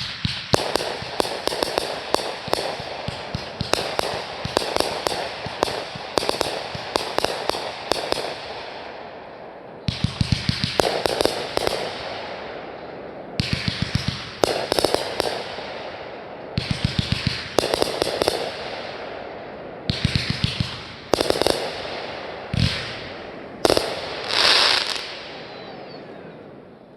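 Fireworks going off in rapid volleys of sharp bangs and crackles. A long dense run lasts about eight seconds, then shorter bursts come every few seconds, with a louder rushing swell near the end.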